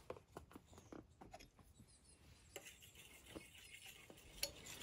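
Light clicks and scrapes of a utensil stirring milk and pudding in a metal pan, with one sharper tap near the end.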